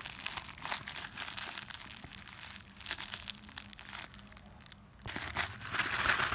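A small plastic-wrapped packet crinkling and rustling as it is worked open by hand. It goes quieter around four seconds in and grows louder again from about five seconds.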